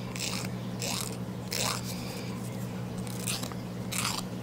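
Emery board filing a white-faced capuchin monkey's fingernails: about six short rasping strokes, a little more than one a second.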